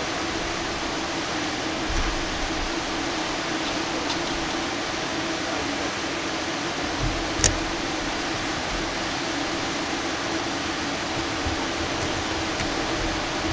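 Steady, even hiss with a low steady hum underneath, and a single sharp click about seven seconds in.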